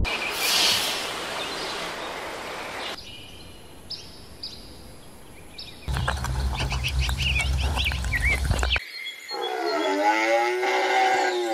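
A run of cut-together sounds: a rushing hiss, then faint thin tones, then birds chirping over a steady low hum, and in the last few seconds one long animal call whose pitch rises and then falls, the loudest sound here.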